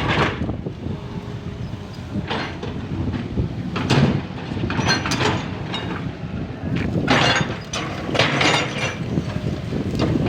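Excavator's diesel engine running steadily, with several sudden knocks and scrapes from the work as it clears ground.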